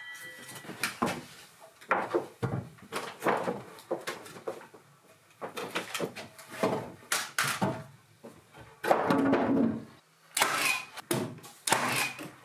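Insulation slabs and timber being handled in a wooden attic: an irregular run of knocks, scrapes and rustles, with a heavier thud-and-rustle stretch a little after the middle.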